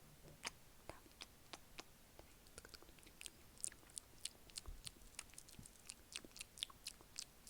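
ASMR mouth sounds close to the microphone: quick, wet clicks and smacks of the lips and tongue, scattered at first and then coming fast, several a second, from about two and a half seconds in.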